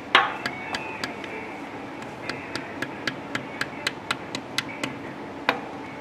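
Ball-peen hammer lightly tapping a new front crankshaft oil seal into the timing cover: a harder strike just after the start, then a run of quick light taps, about four a second, and a firmer hit near the end.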